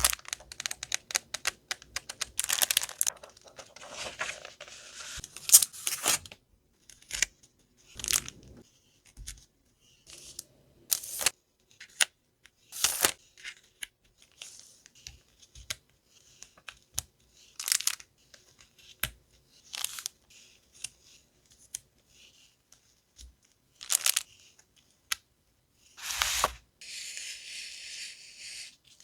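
Plastic and paper stationery packaging being handled and opened: crinkling, rustling and tearing in many short bursts, with light taps, and a longer, steady rustle near the end.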